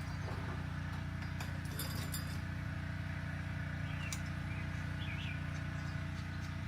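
A few faint metallic clinks of a wrench working a bolt on the bike's front axle, over a steady low hum. A couple of short bird chirps come in near the middle.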